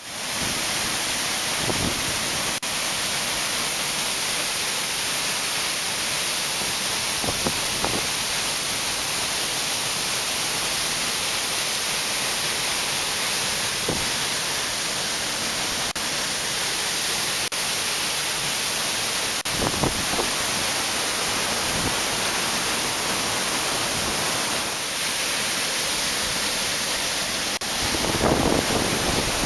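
Steady rush of fast-flowing water, a rain-swollen canyon stream running strong. The hiss stays even throughout, and a lower rush swells in near the end.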